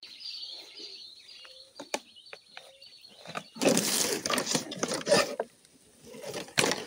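Birds chirping high, then a loud stretch of rustling and crunching for about two seconds starting about three and a half seconds in, and a shorter one near the end.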